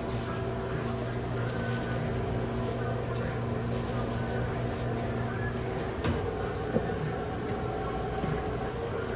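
Steady electrical hum of sandwich-shop equipment, such as the refrigerated prep counter. A couple of soft knocks come about six and seven seconds in.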